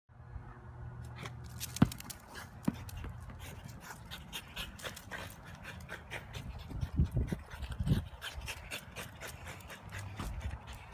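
French bulldog panting hard as it pushes a basketball across brick pavers, with a sharp knock about two seconds in and another shortly after, and dull thumps around seven to eight seconds in.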